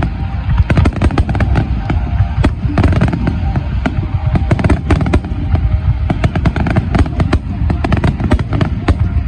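Fireworks show barrage: many aerial shells bursting in quick succession, dense sharp bangs and crackles several times a second over a continuous deep rumble of booms.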